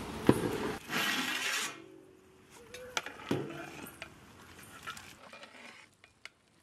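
A few light clinks and knocks of metal cooking pots and utensils, after a short rush of hiss in the first second and a half.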